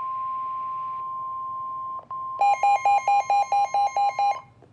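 Emergency alert warning tones: a steady single high-pitched alert tone, broken briefly about two seconds in. It is then joined by harsh rapid electronic beeping, about five beeps a second, which stops shortly before the end.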